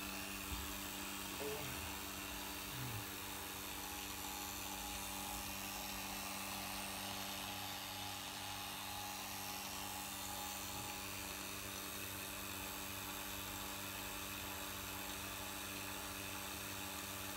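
Steady hum of evenly spaced tones with a hiss above, from a vacuum pump holding the homemade cathode ray tube at vacuum and a 10,000-volt oil burner ignition transformer keeping the discharge in the tube running.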